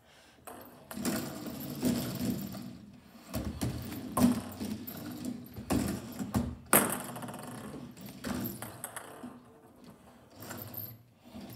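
Foosball table in play: steel rods sliding and spinning, their plastic players clattering against each other and knocking a light ping pong ball, with two loud knocks, about four seconds in and just before seven seconds in.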